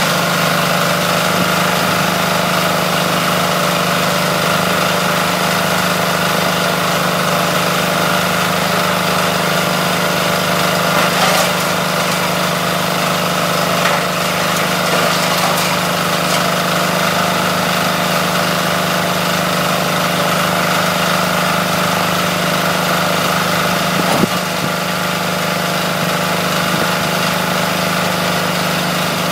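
Small single-cylinder air-cooled diesel engine running steadily at constant speed, driving a coconut-husk shredder. A few short knocks stand out over the steady running.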